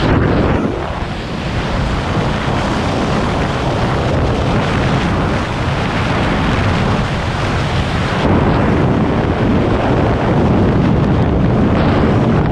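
Loud, steady rush of freefall wind buffeting the camera's microphone during a tandem skydive.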